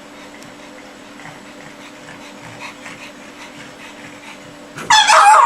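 Faint steady hum with light rustling, then near the end a pug lets out a sudden loud cry that wobbles up and down in pitch.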